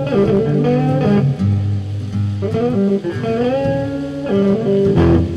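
Blues music on two guitars: a lead guitar plays notes bent upward in pitch over a rhythm guitar, with a loud struck chord about five seconds in.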